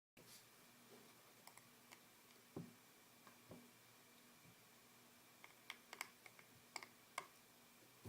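Faint scattered clicks and taps of small tools and parts during the disassembly of an iPhone 4S, with a cluster of clicks about five to seven seconds in, over faint room hum.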